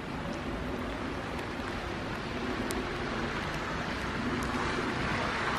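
Freezing rain falling: a steady hiss with a few faint ticks of drops landing, swelling louder near the end.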